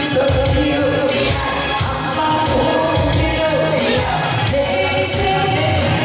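A man sings a Korean trot song into a microphone over a loud backing track with a steady beat.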